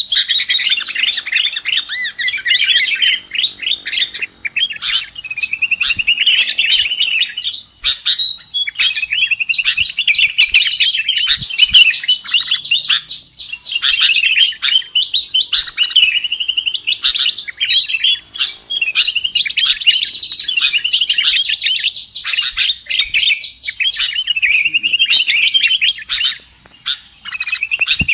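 Recorded bird-lure call of sooty-headed bulbul (kutilang): busy, near-continuous rapid chirping and chattering trills, broken by brief pauses.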